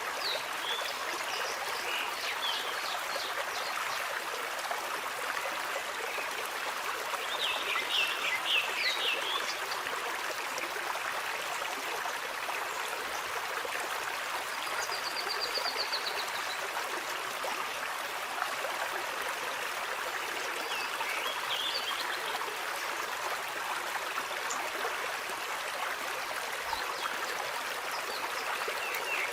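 Water flowing steadily in a stream, with brief high chirps breaking in now and then, including a short trill about halfway through.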